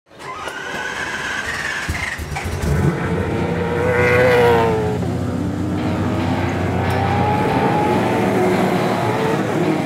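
Race car engines revving and passing by as a sound effect, their pitch rising and falling; the loudest pass comes about four seconds in and drops in pitch as it goes by.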